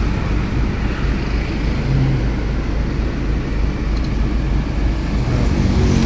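A songthaew (pickup-truck shared taxi) under way, heard from inside: steady engine and road noise with a deep rumble.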